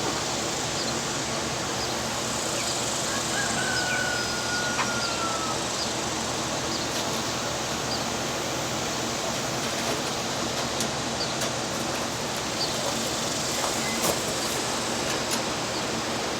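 Steady rushing outdoor noise, with a few faint bird chirps and a short falling whistle-like call a few seconds in.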